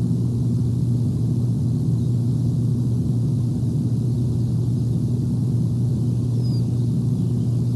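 Steady low rumble with a constant hum, as picked up by an outdoor live nest-cam microphone. A faint, brief high chirp comes about six and a half seconds in.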